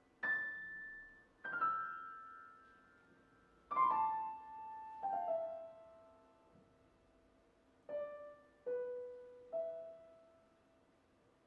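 Piano playing sparse, high chords and single notes, each struck and left to ring and fade, about seven strikes spread over ten seconds.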